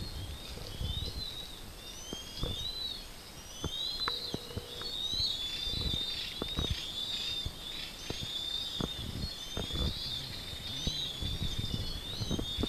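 Many small birds chirping and twittering together in a continuous high chorus, with scattered sharp clicks and low thumps underneath.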